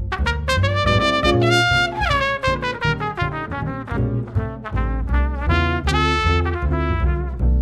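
Jazz trio playing swing: a trumpet plays a line of short, quick notes over a gut-strung double bass walking in steady beats and a Gibson archtop electric guitar accompanying.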